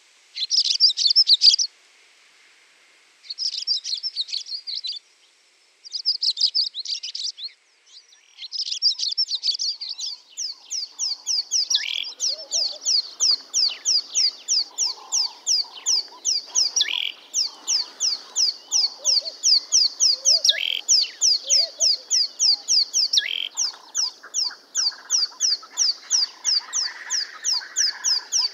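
Small songbirds chirping and twittering: a few short bursts of rapid twittering, then from about ten seconds in a fast, even run of sharp repeated chirps, about five a second, with fainter lower calls beneath.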